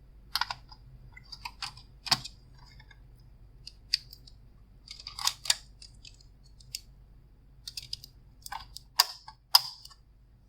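Hard drive being fitted back into a desktop computer case: irregular clicks and short scrapes of metal and plastic, the sharpest two clicks near the end.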